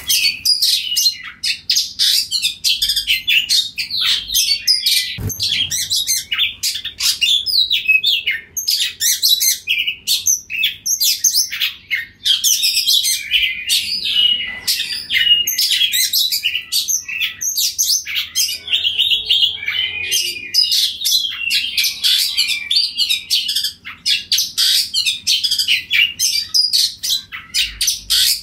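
Oriental magpie-robin singing without pause: a fast, varied stream of clear whistles, chirps and short trills.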